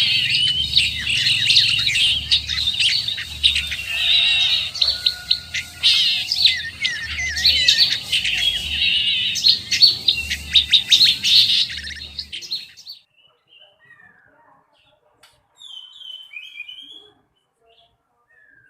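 Anis macan (scaly thrush) singing a dense, rapid twittering song of fast chirps and trills. The song stops abruptly after about twelve seconds, and a few short, fainter notes follow a few seconds later.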